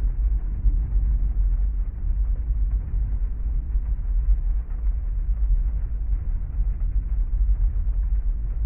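Heavy rain ambience heard from inside a parked car: a steady, dense low rumble with no distinct thunderclap.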